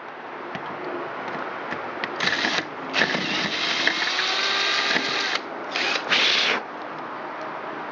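Power drill running a 9/16-inch hole saw through a metal door, cutting in three bursts, the longest about two and a half seconds, with a whine under the cutting noise.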